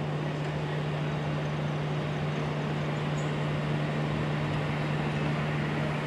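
Steady low hum over a constant rushing noise, unchanging in pitch and level.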